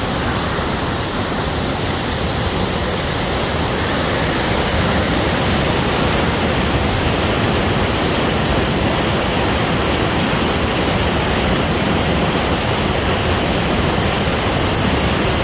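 Flood-swollen, muddy river pouring over a low dam in a steady, loud rush of water. The runoff is heavy from winter rain, and the rush grows a little louder about four seconds in.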